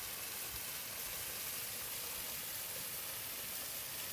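Steady rushing hiss of water falling over a small waterfall.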